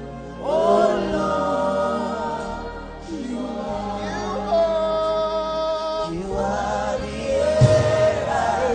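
Gospel worship music: voices singing long, wavering held notes over a steady low accompaniment that moves through chords every second or two, with one low thump near the end.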